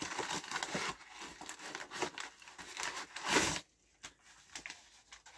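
Brown paper mailing bag and paper packaging rustling and crinkling as hands rummage inside and pull the parcel out, with one loud tear of the paper wrapping a little over three seconds in.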